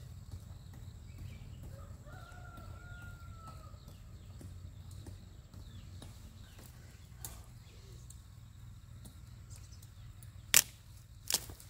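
A rooster crows once in the distance, one drawn-out call a few seconds in. Near the end come two sharp knocks less than a second apart, over a steady low outdoor rumble.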